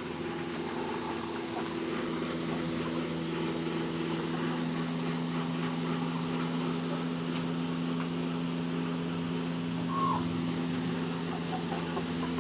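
Poultry shed ambience: a steady mechanical hum under faint, scattered calls from desi chickens, with one brief call about ten seconds in.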